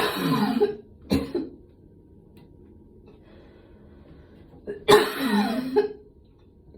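A woman coughing after a gym workout: a cough right at the start, a short second cough about a second later, then a longer cough about five seconds in.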